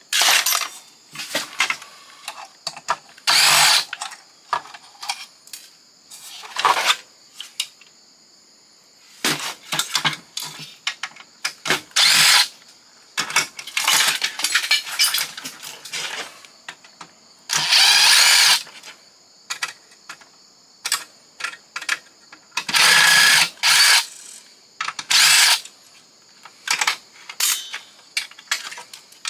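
Power drill running in short bursts of about a second, several times, backing out screws, amid clicks and clatter of plastic and metal parts being handled.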